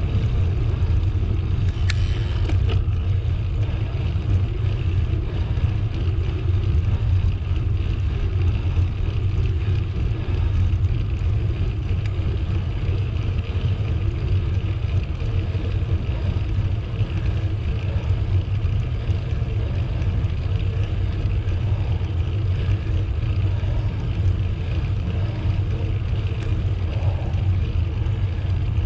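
Steady low rumble of air buffeting the camera microphone, with tyre noise, while a bicycle is ridden along a path. A brief click about two seconds in.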